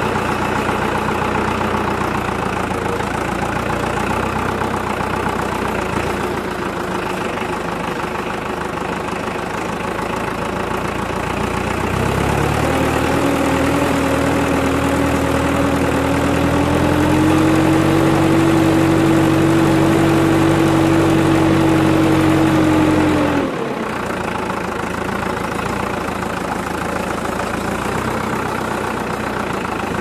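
Deutz-Fahr Agroplus 90 F tractor's diesel engine running as the tractor drives. About twelve seconds in the engine note rises and grows louder, steps up again a few seconds later, then falls back suddenly about two-thirds of the way through.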